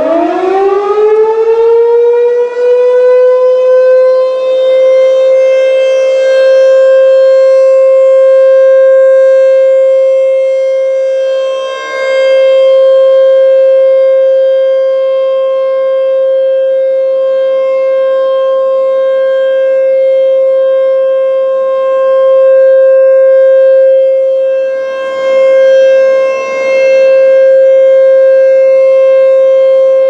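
ASC T-128 rotating tornado siren sounding the steady Alert tone: it finishes winding up in the first few seconds, then holds one steady pitch. Its loudness swells and dips as the rotating horn turns toward and away.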